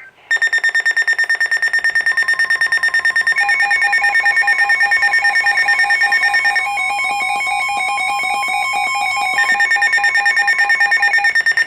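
Weather radio alert alarm sounding for an incoming National Weather Service severe thunderstorm warning: rapid, even electronic beeping, with a second beeping tone joining a few seconds in and the 1050 Hz attention tone beneath. The alarm cuts off abruptly at the end.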